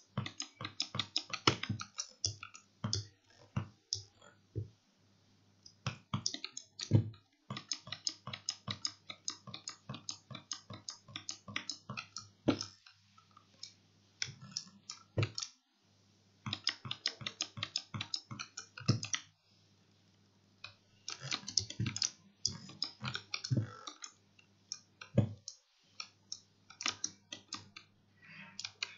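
Razer Huntsman Mini 60% keyboard with optical switches being typed on in fast gaming key presses: quick runs of sharp clicks broken by short pauses. A faint steady low hum runs underneath.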